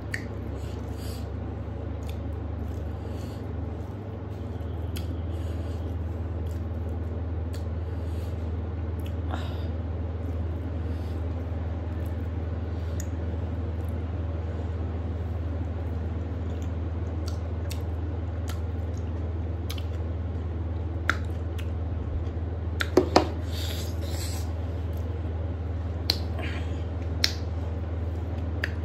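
Close-up eating sounds of rice and curry eaten by hand: soft chewing and mouth noises, with a few sharp clicks in the second half, over a steady low hum.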